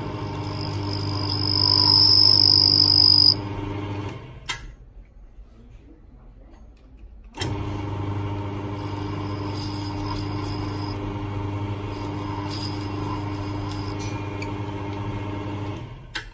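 Jewelry lathe motor running with a steady hum while a diamond cutting tool cuts a ring turning in an S-shaped wave collet. A high cutting whine sounds for the first few seconds. The sound drops away for about three seconds, then the motor hum resumes with short, fainter whines as the tool touches the ring again.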